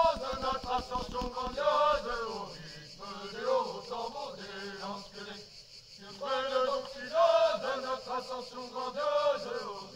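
A group of voices singing a slow, chant-like song in phrases of a few seconds each, with short pauses between them.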